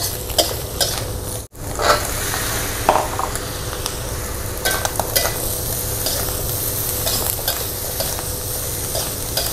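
Vegetables and mushrooms sizzling in a metal wok, with a metal spatula scraping and clinking against the pan as they are stir-fried. The sound drops out for an instant about a second and a half in.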